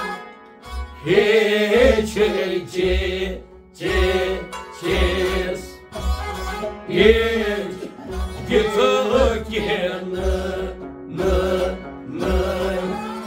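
Kashmiri Sufi music: a male voice sings in long, bending phrases over a steady beat of deep strokes on a clay pot drum, with a bowed string instrument accompanying.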